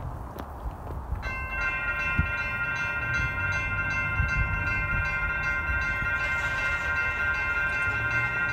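Railroad crossing warning bell starting abruptly about a second in and ringing steadily in an even, repeating pulse as the crossing signals activate for an approaching train.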